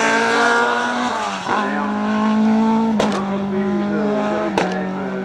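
Race car's engine running hard at high revs on a hill climb. The note breaks briefly at gear changes about a second and a half, three and four and a half seconds in, the last two with a sharp crack.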